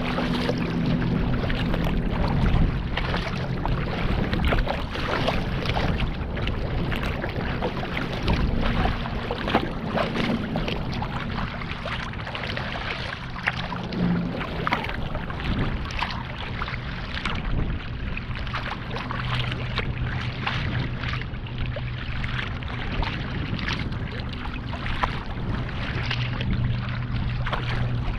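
Choppy waves slapping and splashing against a kayak's bow as it cuts through rough water, a continuous wash of water with frequent short splashes.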